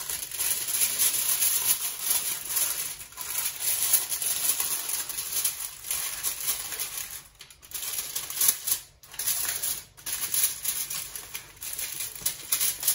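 Aluminium foil crinkling and crackling in irregular bursts as it is pressed and crimped around the rim of a foil tray, with a few short pauses partway through.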